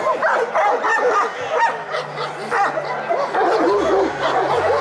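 Several Šarplaninac (Yugoslav shepherd) dogs barking at once, their barks overlapping almost without a break.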